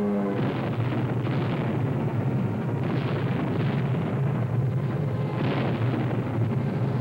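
A series of explosions, about six, over a steady low engine rumble: an air attack, with bombs bursting around a moving truck.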